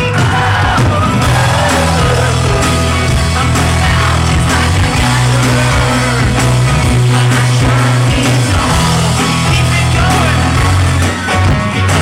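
Live band playing a pop-rock song loudly through a concert PA, with some singing over the music.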